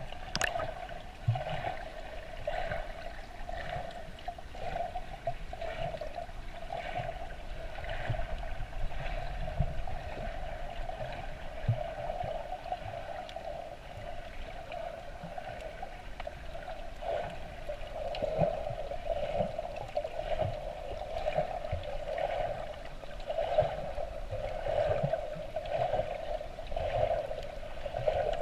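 Underwater water noise heard by a camera below the surface: a muffled, steady hum that swells and fades, with light crackles and soft low thumps of moving water.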